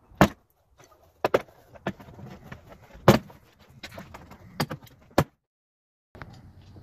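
Plastic retaining clips of a pickup's interior door panel popping loose as the panel is pulled off the door: a run of sharp snaps and clicks, the loudest about a quarter second in and about three seconds in.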